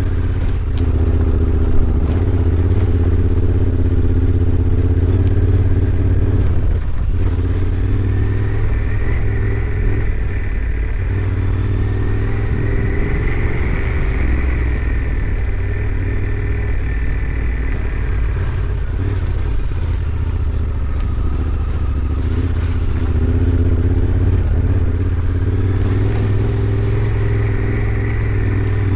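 Honda Africa Twin 1100's parallel-twin engine running while the bike is ridden, its note shifting with the throttle, with a brief drop about seven seconds in.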